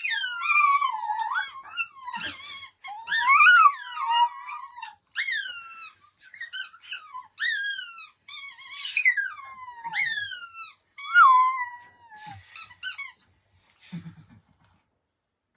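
Puppy howling in a run of high-pitched, whining howls, each falling in pitch, one after another, stopping about 14 seconds in.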